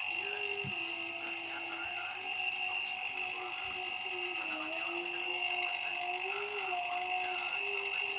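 Refrigeration vacuum pump running steadily while evacuating a chest freezer's sealed system before its R600a charge, with a constant high whine and a lower tone that wavers slightly in pitch.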